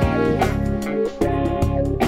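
Instrumental background music, with pitched notes over a steady beat and a brief drop in the bass about halfway through.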